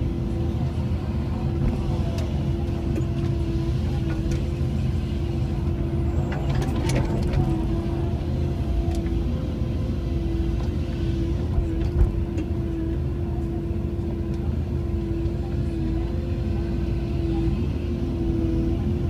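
Cat 312E excavator running steadily under hydraulic work, a steady whine over the engine that dips in pitch now and then as the boom moves a Tigercut 250 tree shear. A brief crackling about seven seconds in and a single sharp knock about twelve seconds in.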